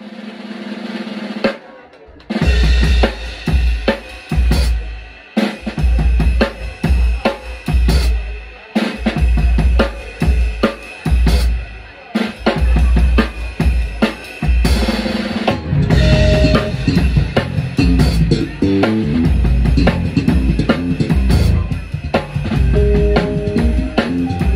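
Live jazz-fusion band led by its drum kit. After a held low note swells up at the start, drums and bass strike a run of loud accented hits with short gaps between them. They then settle into a busy groove, with held keyboard chords coming in over the second half.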